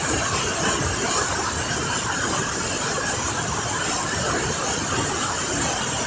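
A river in spate below a waterfall, its water rushing past fast and high in a steady, loud, unbroken roar.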